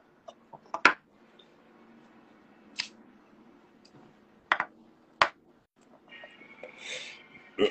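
Handheld lighter clicked several times with sharp, separate clicks, then a breathy rush from about six seconds in as smoke is drawn in and blown out.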